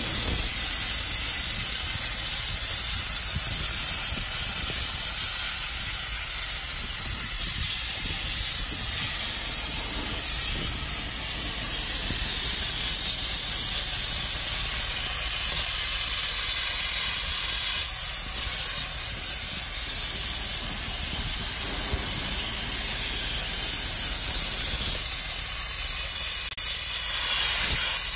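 Soda-blasting gun spraying compressed air and soda media against brickwork: a loud, steady hiss.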